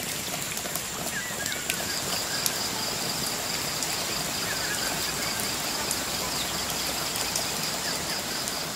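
Steady rush of a flowing river. From about two seconds in, a high, pulsing insect call joins it.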